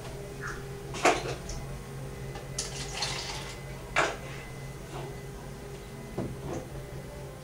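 Scattered household knocks and clatters, with two sharper knocks about a second in and about four seconds in and a brief rattling clatter between them, over a steady low hum.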